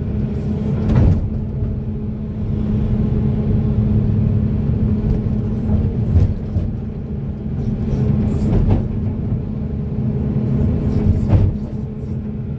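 Hydraulic excavator's diesel engine running steadily under load, with a constant hum, and four sharp knocks spread through it.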